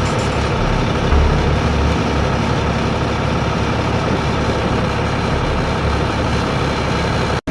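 Heavy earthmoving machinery engine running steadily with a low rumble; the sound cuts off abruptly near the end.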